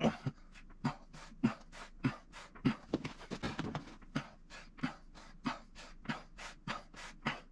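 A man breathing hard in short, rhythmic puffs, about three a second, while straining through a set of overhead dumbbell presses.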